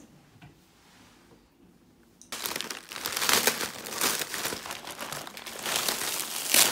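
Plastic packaging crinkling as a poly mailer bag is opened and plastic-wrapped clothes are pulled out of it. It starts suddenly a little over two seconds in, after a quiet start, and stays loud and dense.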